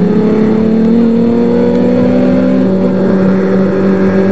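Off-road race buggy engine running hard at high revs, its pitch climbing slowly during the first couple of seconds and then holding steady.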